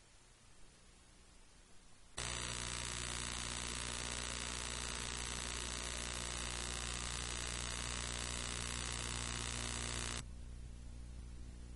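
Steady electrical hum and buzz made of many even tones, switching on abruptly about two seconds in and cutting off abruptly about eight seconds later, with faint hiss either side.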